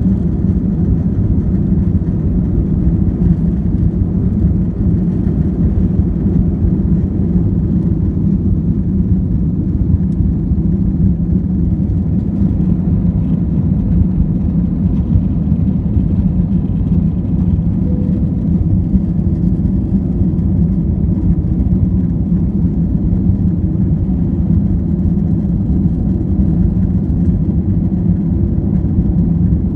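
Airliner jet engines running: a loud, steady low rumble that holds even with no change in pitch.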